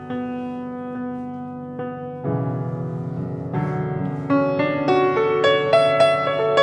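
Piano music: a single note repeated like a tolling bell, about once a second, over a held low chord. A little over two seconds in a new low chord enters, followed by notes climbing step by step and growing louder toward the end.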